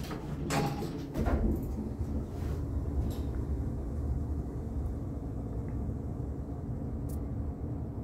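MEI hydraulic elevator car moving off downward: a few short knocks in the first second and a half, then a steady low rumble as the car travels down.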